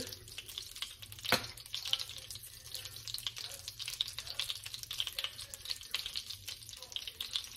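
Brown sugar sizzling and crackling steadily as it bubbles and browns in a hot pan, with one sharp click about a second and a half in.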